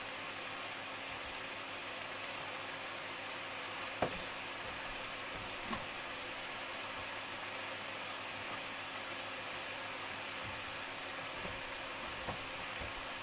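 Cabbage and minced beef sizzling in a frying pan, a steady hiss, with three light knocks, the sharpest about four seconds in.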